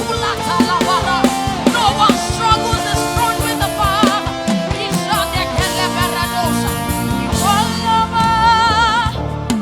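Live gospel praise music: a singer's voice with vibrato over a band with drum kit and guitar, playing at a steady beat.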